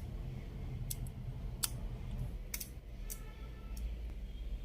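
Scattered sharp clicks and taps, about eight in all, from handling a ceiling fan's coil wires and test leads during a coil check, over a low steady hum.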